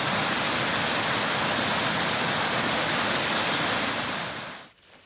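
Small mountain stream cascading over mossy rocks in a steady rush of water, running high after heavy rain; the sound fades out near the end.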